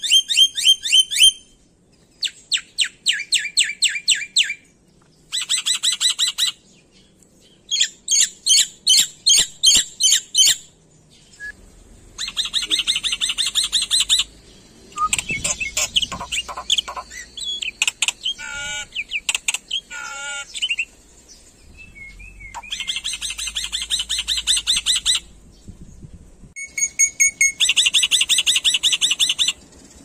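Black-winged myna singing: bursts of rapidly repeated notes, each phrase a second or two long, separated by short pauses, with a few wavering, lower-pitched notes in the middle.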